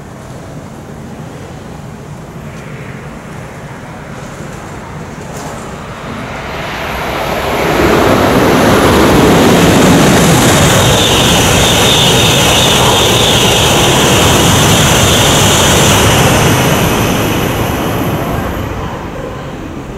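Shinkansen high-speed train, coupled E2 and E3 series sets, passing through at speed. A rushing roar builds from about six seconds in and stays loud for about eight seconds, with a high steady whine in the middle. It then fades away near the end.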